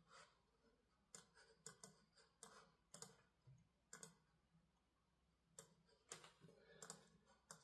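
Faint, irregular clicks from a laptop computer being operated by hand: about a dozen short clicks, spaced unevenly, some in quick pairs.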